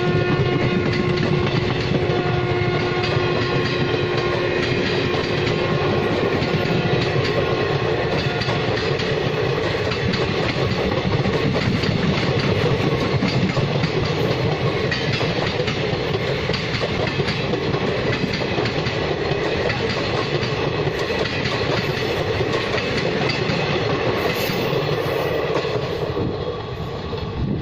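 An Indian Railways express train, hauled by a WAP-4 electric locomotive, running past at speed: continuous wheel rumble and clickety-clack of the coaches over the rail joints. The end of the locomotive's horn sounds at the very start, and the noise falls away near the end as the train passes.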